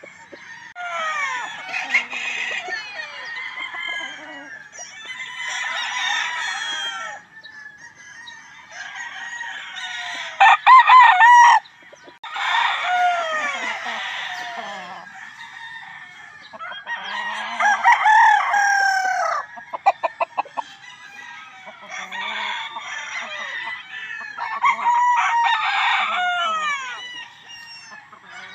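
Gamefowl roosters crowing one after another, about seven crows, some of them overlapping. Twice, about a third and about two-thirds of the way through, there is a short rapid clatter, the loudest sound in the stretch.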